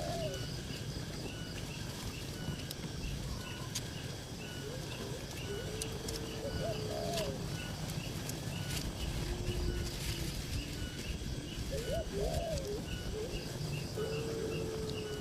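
Birds giving low cooing calls every few seconds, some short and curving up and down, others longer and level, over a fast, evenly repeating high chirping.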